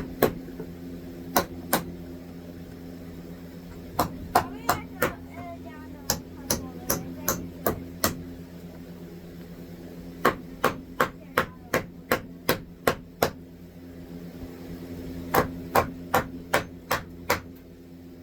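Hammer striking a wooden 2x4 in quick runs of sharp blows, about three a second, with short pauses between the runs, over a steady low hum.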